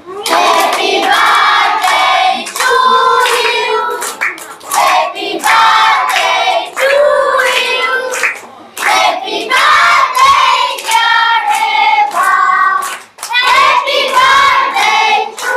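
A group of children and adults singing a birthday song together in chorus, with hand clapping along.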